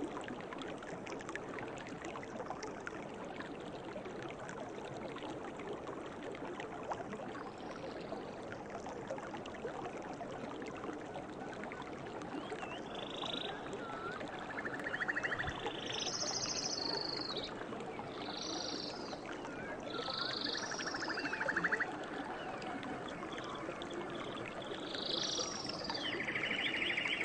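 Forest stream running steadily. About halfway in, a series of short, trilled animal calls starts and repeats every second or two.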